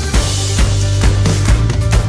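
Background music with a steady drum beat, about two hits a second, over a sustained bass line.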